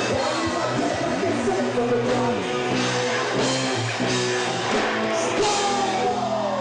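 Live rock band music: a man singing over acoustic guitar and band, with a long falling sung note near the end.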